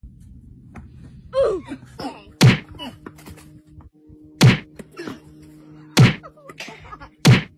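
A series of loud, dull thunks, four strong ones spaced about one and a half to two seconds apart with fainter knocks between them, over a faint steady hum.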